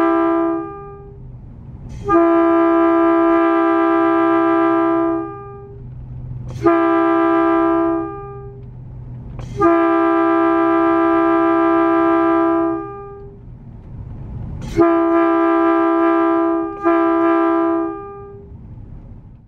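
Nathan AirChime P2 locomotive air horn sounding a series of blasts as one steady two-note chord. One blast ends just at the start, then come two long blasts with a short one between them, and near the end two shorter blasts close together. Each blast begins with a sharp pop.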